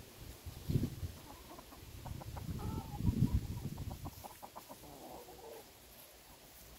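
Chickens clucking a few times, about two and a half seconds in and again around five seconds, with a run of faint ticks between the calls and low thumps about a second in and around three seconds.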